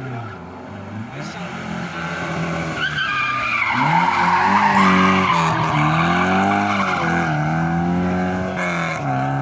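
Rally car engine coming up and through a tight bend, loudest about four to six seconds in, its revs rising and dropping several times as the driver accelerates and lifts. The tyres squeal briefly as it turns.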